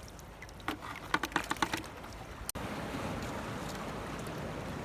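A quick run of sharp clicks and rattles about a second in, as the caught crab is handled and put away. After an abrupt cut about two and a half seconds in, a steady wash of sea noise at the rocky shore takes over.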